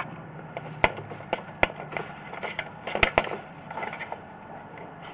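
Irregular hard knocks and clatter, a few a second at most and loudest about three seconds in, as the sewer inspection camera and its push cable are pulled back out through the cleanout.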